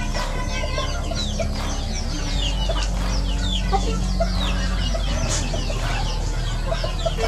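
A flock of chickens feeding: many young birds peeping in short, high, falling chirps, with hens clucking.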